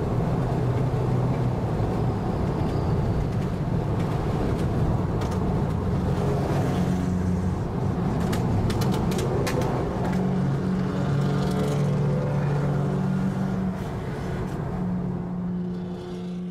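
Straight-piped exhausts of classic cars cruising together, a steady engine drone whose pitch shifts several times as they speed up and ease off. There is a run of sharp crackles about seven to nine seconds in, and the sound fades away near the end.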